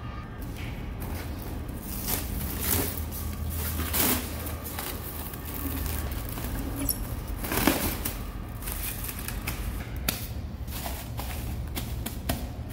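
Plastic stretch wrap film being pulled off its hand roll and wound around a steel hydraulic cylinder. The film makes irregular crackling, rustling pulls, over a steady low hum.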